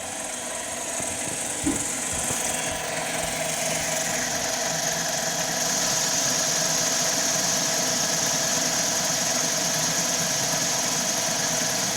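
CNC mini lathe spindle running while a carbide tool cuts aluminium, turning a ball radius dry: a steady machine hum with a high cutting hiss that grows louder over the first few seconds and then holds. A brief knock comes nearly two seconds in.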